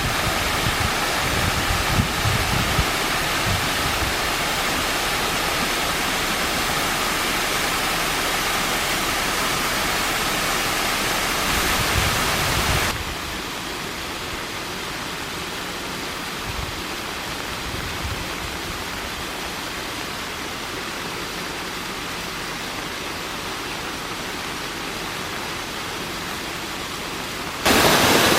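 Steady rushing water of a waterfall that runs only after rain. About 13 seconds in the rush drops abruptly to a softer level, and it jumps back up shortly before the end.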